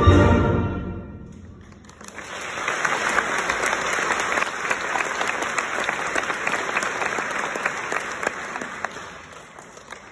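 A high school concert band's final chord rings and fades out, then the audience applauds for several seconds. The applause dies away near the end.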